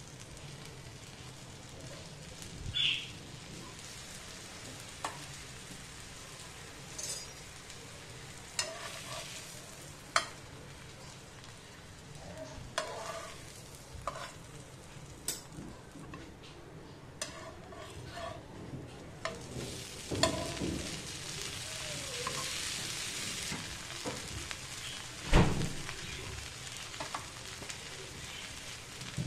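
Garlic-buttered bread sizzling on a hot tawa, with a steady frying hiss. Scattered clicks and taps of metal tongs against the pan as the slices are turned, with one louder knock late on.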